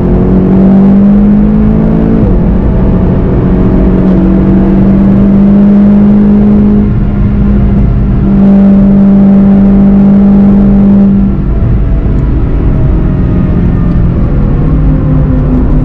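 Volkswagen Golf GTI TCR's turbocharged four-cylinder engine pulling hard at high revs, heard from inside the car, with upshifts about two and seven seconds in. About eleven seconds in the engine note drops as the driver lifts off and brakes.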